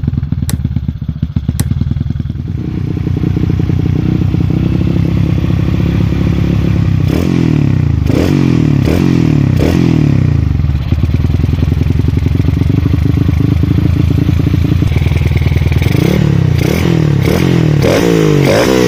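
Bored-up Yamaha Byson (FZ16) single-cylinder four-stroke motorcycle engine running loud through a short aftermarket DBS exhaust. It idles steadily, then is blipped with four quick throttle revs in the middle and several more near the end.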